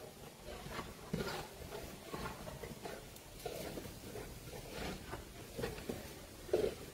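Two Boerboels play-fighting: a run of short, irregular dog grunts and huffs mixed with scuffling, the loudest burst near the end.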